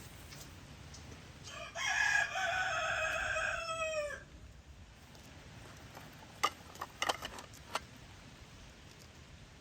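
A rooster crowing once: one long crow of about two and a half seconds that drops in pitch at the end. A few short clicks or knocks follow a few seconds later.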